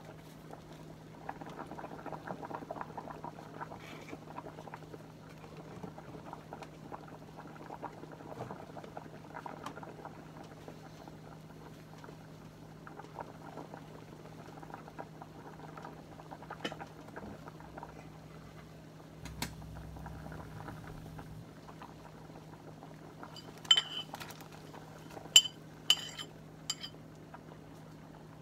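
Soup bubbling at a rolling boil in a stainless steel stockpot, a steady crackly bubbling over a steady low hum. Near the end come a few sharp metallic clinks.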